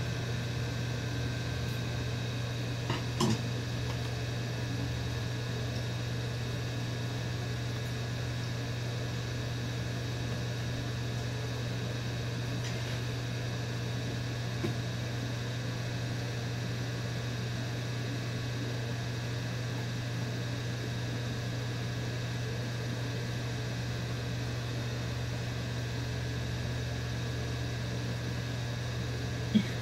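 Steady low hum, broken by a few light knocks and clicks from hand-driving screws into a flat-pack table panel, with the sharpest knock just before the end.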